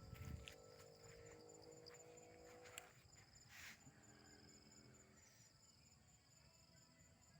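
Faint insects chirring, a steady pulsing high trill like crickets, with a few soft clicks and a brief rustle about three seconds in.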